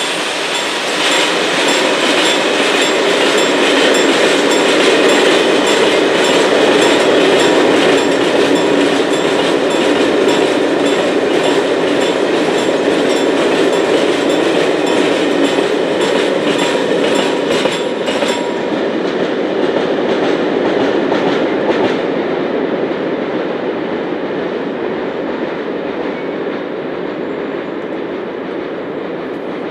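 Freight train of tank wagons passing close by, its wheels clattering over the rail joints. The clatter thins out about two-thirds of the way through as the last wagons go by, leaving the rumble of the receding train slowly fading.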